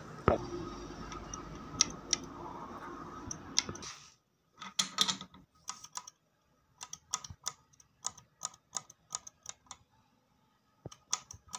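Light metallic clicks and taps of small parts being fitted by hand into the underside of an inline diesel injection pump during plunger installation, irregular, two or three a second. A steady background hum runs under the first four seconds, then stops.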